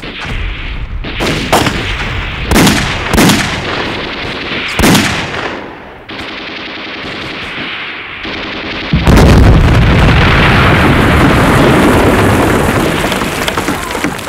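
Film battle gunfire: several sharp single rifle shots, then rapid machine-gun fire, then from about nine seconds in a sudden, loud, long rush of noise that slowly fades.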